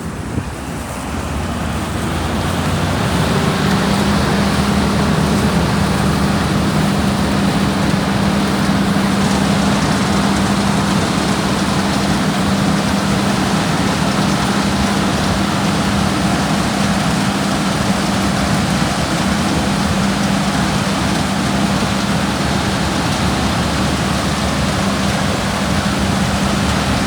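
Combine harvester running under load while cutting winter barley: a steady machine hum with a constant drone, building up over the first few seconds as it goes into the crop and then holding steady.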